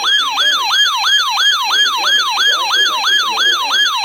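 Electronic siren sounding a fast yelp, its pitch sweeping up and down about four times a second.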